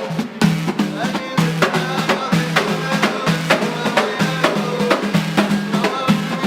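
Gnawa music: a low plucked bass line stepping between a few notes under sharp percussive clicks that repeat in a steady rhythm.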